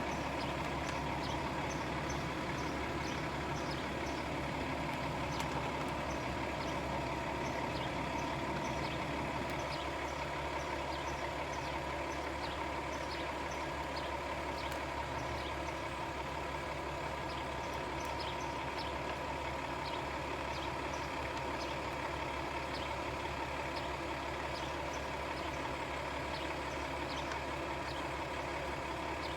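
Steady machine hum made of several fixed tones, with faint short high chirps scattered over it.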